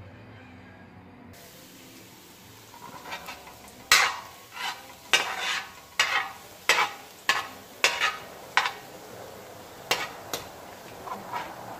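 A metal spatula scrapes and taps against a metal wok as minced garlic is stirred and fried, with a faint sizzle underneath. A dozen or so sharp scrapes and knocks come in quick succession, starting about four seconds in.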